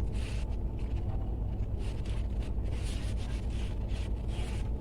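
Soft, irregular rustling of a cotton padded bra being handled and stretched, over a steady low hum.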